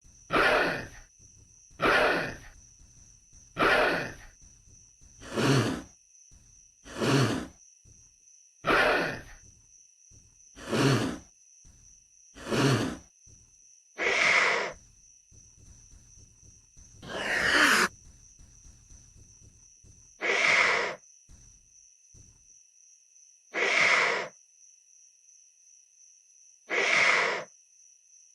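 Utahraptor creature sound effect: eight short, breathy hissing exhales about every two seconds, then five longer, harsher breaths spaced about three seconds apart. A faint, steady high-pitched tone runs underneath.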